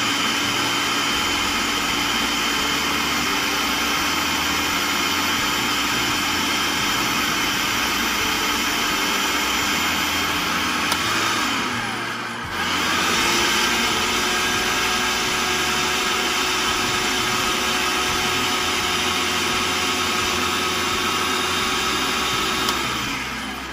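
Countertop food processor motor running steadily, its blade chopping a bowl of vegetables and crackers. About halfway through it winds down briefly and starts up again; near the end it is switched off and spins down with a falling pitch.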